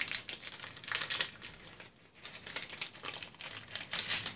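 A plastic candy wrapper crinkling as it is torn open by hand, in irregular crackly rustles that are loudest near the end.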